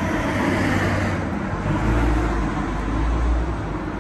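Street traffic noise: a steady rumble of passing cars, with a deeper swell of low rumble about two seconds in.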